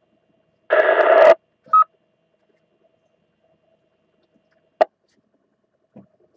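Amateur FM radio receiver on a two-metre repeater between transmissions: a half-second rush of squelch static about a second in, then a short repeater courtesy beep. Later comes a sharp click, and a fainter one near the end.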